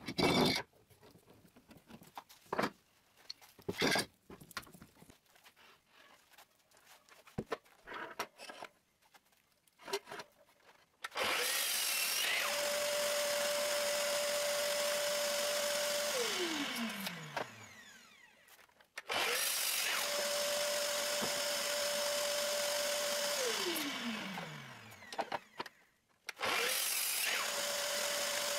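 A few scattered knocks from a hammer on a clamped wooden glue-up, then a sliding compound miter saw runs twice: each time the motor comes up to speed with a steady whine, runs several seconds and winds down falling in pitch after switch-off. It starts a third time near the end.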